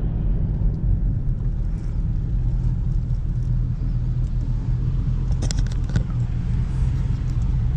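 Camaro SS V8 engine running steadily at low revs, a deep rumble, with a few sharp clicks about five and a half seconds in.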